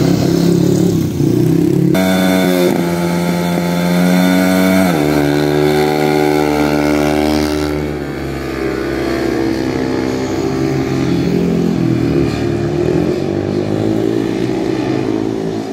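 Speedway motorcycle's single-cylinder engine running on the dirt track, its pitch rising and falling as the throttle is worked, with a sudden jump in pitch about two seconds in and a drop about five seconds in.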